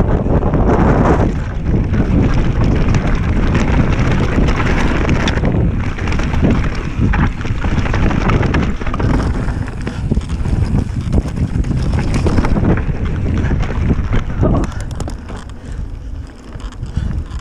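Wind buffeting the microphone of a mountain bike descending a rough dirt trail at speed, mixed with tyre noise and frequent knocks and rattles from the bike over the bumps.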